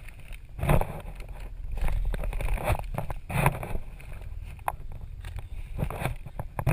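Someone crawling through a crawlspace: irregular rustling, scraping and dull knocks about once a second, with handling noise from the jostled camera.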